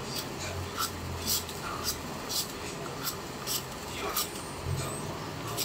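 Hand-held vegetable peeler scraping the skin off a potato in quick repeated strokes, about two short rasps a second.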